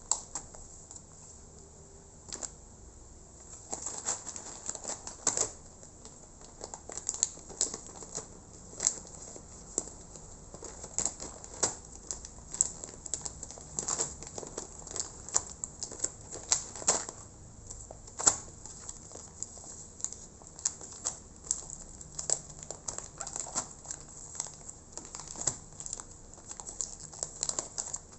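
Parcel packaging being handled and opened by hand: plastic crinkling with many irregular sharp clicks and taps.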